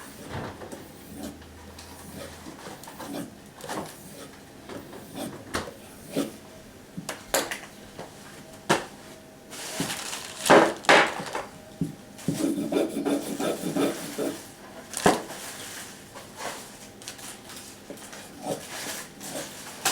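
A knife blade being drawn in irregular strokes across a sharpening surface, a rubbing scrape. A few louder strokes come about halfway through and again near three-quarters of the way.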